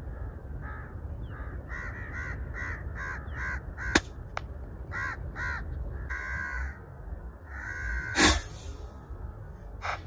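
Crows cawing in a quick run of about a dozen calls, about three a second, followed by a couple of longer caws. There is a sharp click about four seconds in. About eight seconds in comes a single sharp report, the loudest sound, from the shot of a .22 Edgun Matador R3M PCP air rifle.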